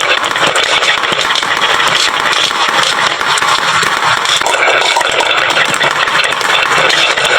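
Many glass marbles rolling and clattering down a wooden marble-run slope, a loud continuous rattle of countless small clicks.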